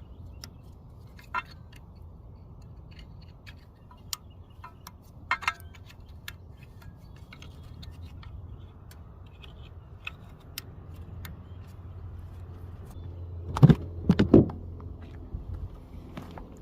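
Scattered sharp clicks and light rattles of work in the engine bay over a low steady hum, then, a little over halfway through the last quarter, a few loud knocks and the 2009 Chevy Cobalt's four-cylinder engine starting to run steadily after its coil pack is swapped.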